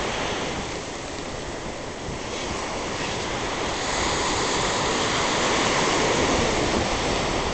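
Small sea waves breaking and washing up a sandy beach: a steady rushing surf that swells louder about two to four seconds in.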